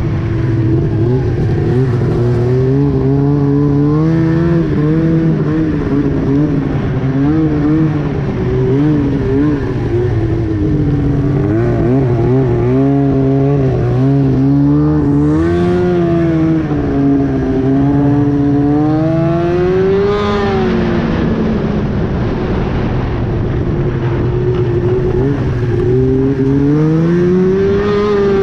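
A 2009 Arctic Cat Crossfire 1000R snowmobile's two-stroke twin is running loud through an aftermarket GGB exhaust can while riding. The engine pitch rises and falls with the throttle, climbing sharply about two-thirds of the way through, dropping back, then climbing again near the end.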